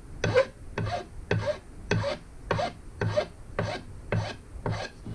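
Hand file rasping along freshly glued wood edge banding to trim it flush, in even strokes about two a second.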